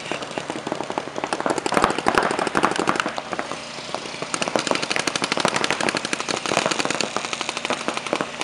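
Paintball markers firing rapid strings of shots. Several guns pop at once in a fast, continuous rattle that swells and eases.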